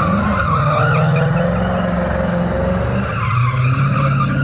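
Hot rod doing a burnout: engine held at steady high revs while the rear tires spin and squeal.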